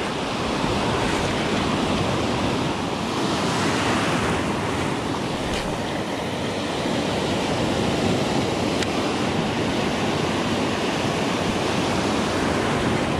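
Ocean surf: waves breaking and foamy water washing up the beach in a steady roar of noise.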